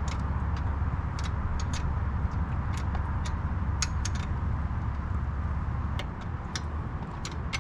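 Irregular sharp metallic clicks and clinks of hand tools on bolts and brackets, over a steady low hum that drops away about six seconds in.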